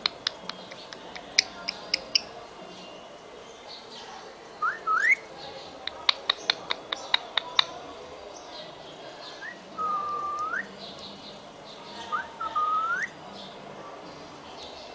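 Indian ringneck parrot giving short rising whistles, three times, with two runs of sharp rapid clicks in between.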